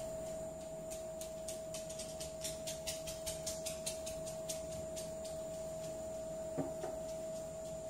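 A rapid run of light clicks, several a second, from about a second in until about five seconds in, as a computer mouse is worked, over a steady high-pitched whine.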